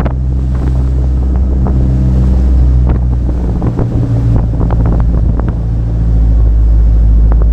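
Charter fishing boat's engine running steadily under way, with wind buffeting the microphone; the engine note shifts about three to four seconds in.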